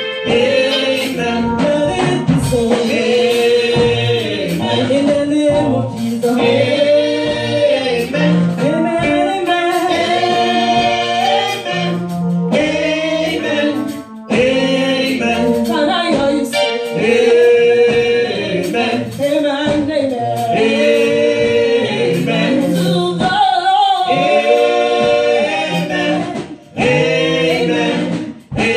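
A group of women sing a gospel song together into microphones. The singing drops briefly about halfway through and twice near the end.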